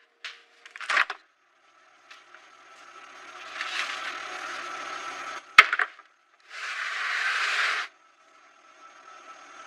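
Vacuum-sealed packs of meat being handled and laid into a clear plastic refrigerator drawer: plastic rustling and sliding in short spells, with a sharp knock about five and a half seconds in.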